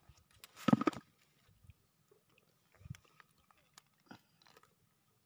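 Close crackling and rustling of a nylon gill net and a wet fish being worked free by hand, with a louder burst about a second in and smaller ones near three and four seconds.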